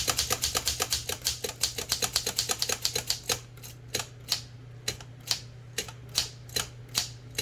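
Smith Corona No. 3 typewriter keys being struck: a fast run of type-bar strokes for about three seconds, then slower, spaced single strokes. Each stroke advances the ribbon spools.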